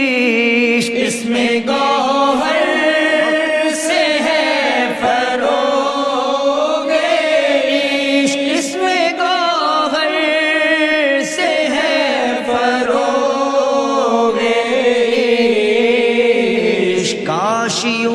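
A man singing a devotional Urdu qasida into a microphone, in long melodic phrases with held, wavering, ornamented notes.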